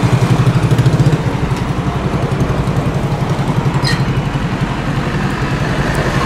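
Jet engines of an Airbus A350 at takeoff thrust as it lifts off and climbs away: a steady low rumble with a fast throb, loudest in the first second.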